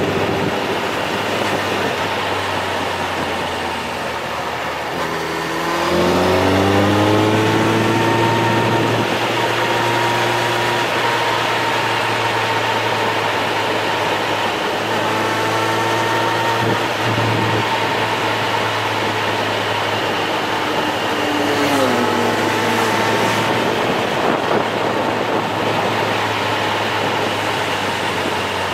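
Motor vehicle engine running under a steady rush of road and wind noise. About six seconds in, and again past twenty seconds, its pitch climbs and then settles.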